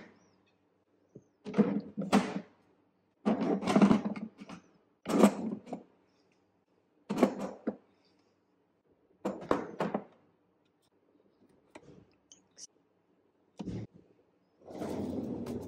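Clear plastic organiser bins and small supplies being set down in a drawer: a series of short plastic thunks and rattles, separated by silent gaps.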